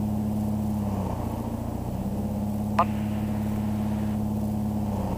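Tecnam P2010's piston engine held at run-up power (about 2100 RPM) while the constant-speed propeller is cycled for the pre-takeoff check: the engine note sags about a second in, comes back up a second later, then sags again near the end. A brief falling chirp sounds about halfway through.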